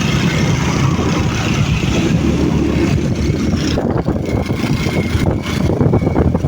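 Motorcycle engines running in a steady low drone. The hiss above it drops away abruptly about four seconds in.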